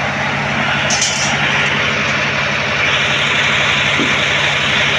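Heavy diesel engine running steadily at a constant pace, with a brief click about a second in.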